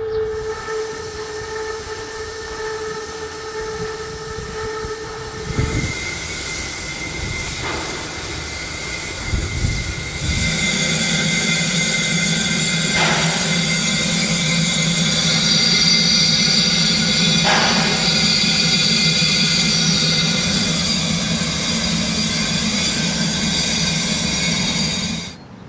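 Steam hissing steadily from the 1909 steam locomotive A 428 as it stands in steam. From about ten seconds in it grows louder, with a low steady tone under the hiss, and it cuts off abruptly near the end.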